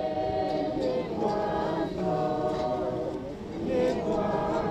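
A group of voices singing a slow hymn together, holding long notes phrase after phrase.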